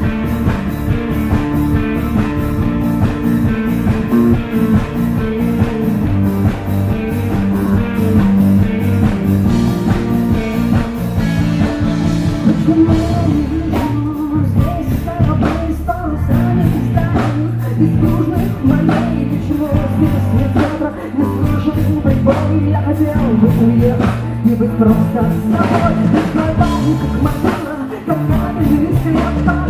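Live rock band with drum kit and guitars playing a song, a woman singing lead at the microphone.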